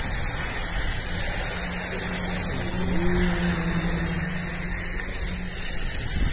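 Steady road noise of a car moving along a wet street: tyre hiss on wet pavement over a low engine rumble, with a low steady hum for a few seconds in the middle.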